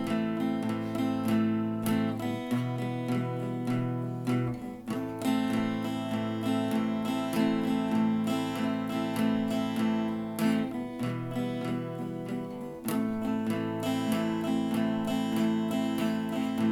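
Background music: strummed acoustic guitar playing slow chords, with changes every couple of seconds.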